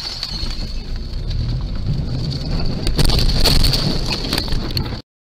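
Car cabin noise picked up by a dash cam's microphone: rumbling road and engine noise with a steady high whine and several sharp knocks, the loudest about three seconds in, as the camera is jolted out of its view. The sound cuts off abruptly near the end.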